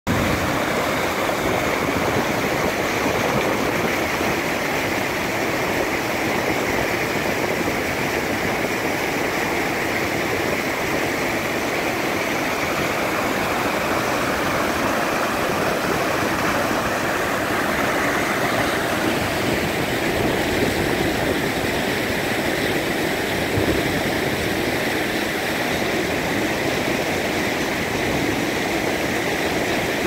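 Waterfall rushing, whitewater pouring over rocks and down a narrow rocky channel in a loud, steady rush.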